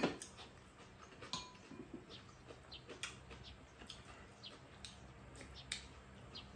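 Quiet mealtime sounds: a few sharp clicks of metal spoons and chopsticks against bowls and the pan, with soft eating noises. Faint short high chirps come and go throughout.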